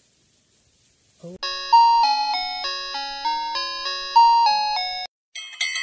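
Channel intro jingle: a melody of about a dozen clear, bell-like chime notes, each about a third of a second, stepping up and down. After a brief gap near the end, a higher, quicker run of sparkly chimes begins.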